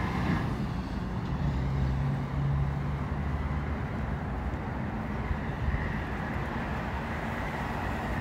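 Road traffic on a busy multi-lane street: a steady rumble of engines and tyres, with one vehicle's low engine drone strongest in the first few seconds, then fading.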